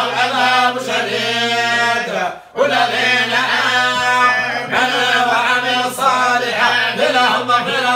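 Several men chanting a Quranic recitation together in unison, slow and melodic with long held notes, with one short breath pause about two and a half seconds in.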